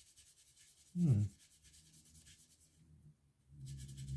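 Stiff paintbrush bristles dry brushing a plastic miniature: a quick rhythmic scratching of short scrubbing strokes that stops about three seconds in. A brief low sound falling in pitch comes about a second in, and a low hum near the end.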